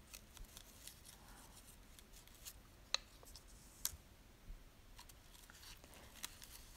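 Faint, scattered clicks and ticks of stiff paper labels being flicked through and pulled from a small cardboard box, a couple of them sharper about three and four seconds in.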